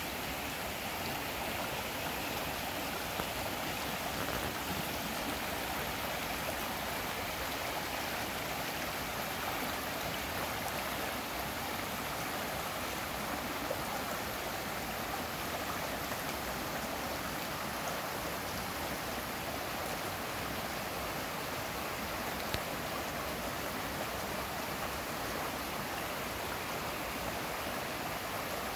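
Shallow rocky stream rushing steadily over and around boulders, an unbroken wash of flowing water, after several inches of rain.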